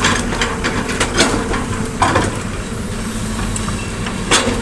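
Heavy diesel engine of an excavator loading dump trucks, running steadily, with sharp knocks and clanks now and then: at the start, about a second in, about two seconds in, and near the end.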